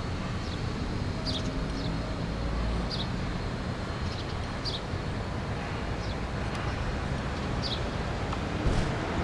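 Short, high chirps from house sparrows at a nest box, repeated every second or so, over a steady rumbling background noise.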